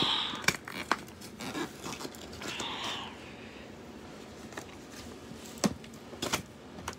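Cardboard Beyblade packaging being handled and pried open: scattered light taps, clicks and scrapes, with a short rustle about three seconds in.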